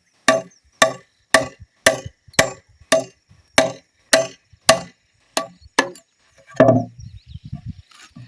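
A tool striking wood in steady blows, about two a second and eleven in all, then one heavier thud a little after six seconds in, as a wooden cover is shaped and fitted to a traditional beehive.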